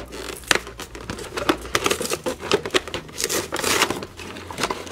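Clear plastic packaging window and cardboard toy box crinkling and crackling as they are handled and pulled open, with many sharp clicks and a longer tearing stretch about three and a half seconds in.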